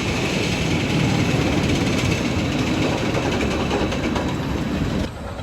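Rumbling noise of a roller coaster train running along its track, steady and loud, cutting off abruptly near the end.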